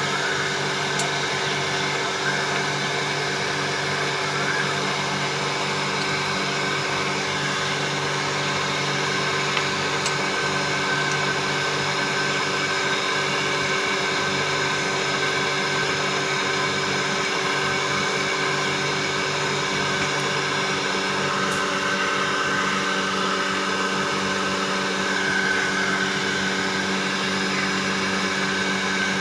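A 1.5 HP domestic jet pump running steadily just after priming and start-up, its electric motor humming evenly as it builds pressure.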